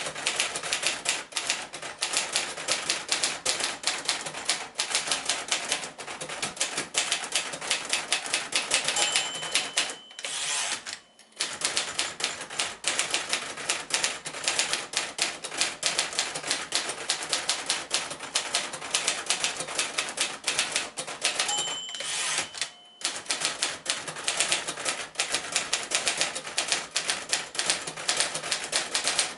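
1952 Royal Senior Companion manual typewriter typing fast and steadily, its type bars clacking against the platen. Twice the margin bell rings near the end of a line and the typing breaks off briefly for the carriage return.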